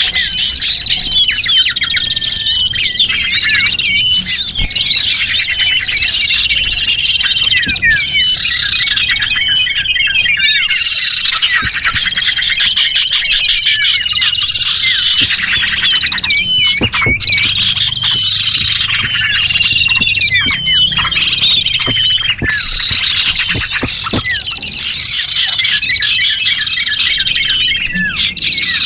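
Dense, continuous chorus of many small songbirds chirping and twittering over one another, a recorded lure call used to draw small birds in.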